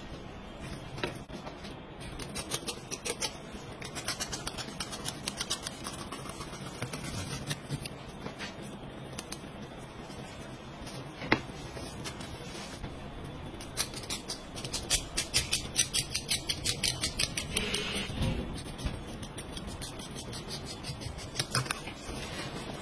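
Knife filleting a whole salmon, the blade clicking in quick runs of several ticks a second as it cuts along the bones. A single sharp knock comes about eleven seconds in and a dull thump about eighteen seconds in.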